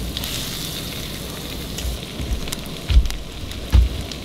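Butter melting and sizzling in a hot pan on a camp stove, a steady hiss with small crackles. Low thumps come about three and nearly four seconds in.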